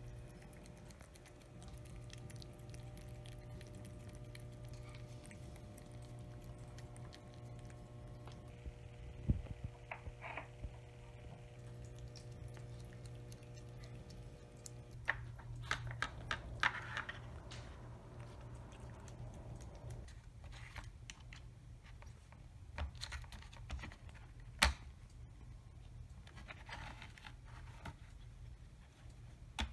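A cat licking and chewing wet food out of a plastic food puzzle: scattered short clicks and wet mouth sounds against the plastic, in irregular clusters, over a steady low hum.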